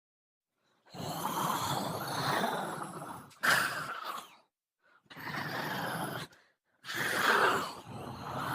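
A creature sound effect: five breathy, rasping exhalations with no clear pitch, separated by short silences, the first about two seconds long.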